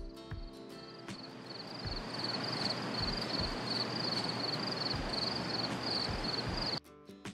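Cricket-like insect chirping: a high, pulsing trill repeating several times a second over a steady hiss. It cuts off suddenly near the end.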